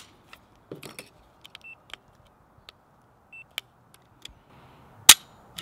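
A double-action/single-action pistol on a trigger pull gauge, dry-fired in single action: light handling clicks and two short electronic beeps, then a sharp click about five seconds in as the trigger breaks and the hammer falls on a pull of about 4 pounds 5 ounces.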